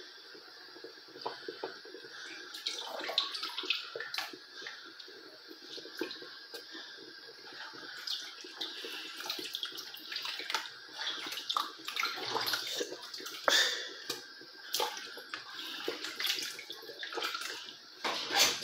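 A large stainless-steel pot of ogbono soup boiling hard: continuous bubbling with irregular pops and spatters, getting busier after the first few seconds.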